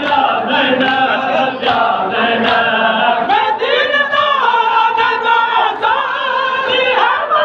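Men singing a Muharram noha (lament) together in chorus, the voices rising and falling in a chanted melody, with a few sharp beats among them.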